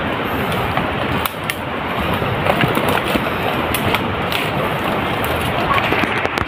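Leaves and branches rustling and brushing as someone pushes on foot through dense undergrowth, with scattered sharp snaps and cracks of twigs.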